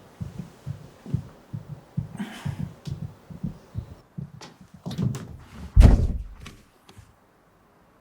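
Low, quick, uneven thumping like a heartbeat, then one much louder heavy thud about six seconds in. The sound cuts off about a second later.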